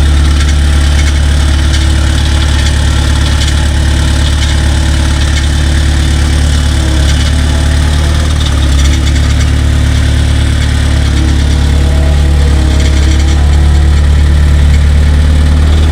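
The engine of a compact bucket machine, such as a skid steer, running steadily close by, with a loud, deep, even hum.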